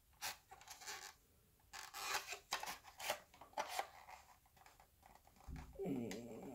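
Hard plastic parts of an Evel Knievel toy's wind-up launcher being handled and fitted together: scattered faint clicks and scrapes, then a short low grinding rattle near the end.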